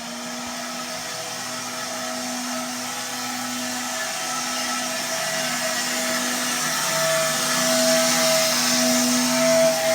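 Old rusted vacuum cleaner motor running steadily with a whining hum over airflow hiss, getting gradually louder. The owner finds it has not very much suction.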